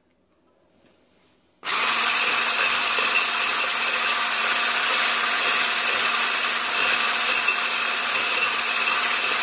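Electric hand blender with a whisk attachment switched on about one and a half seconds in, then running with a steady whir and an even hum, starting to beat egg whites in a tall glass vase.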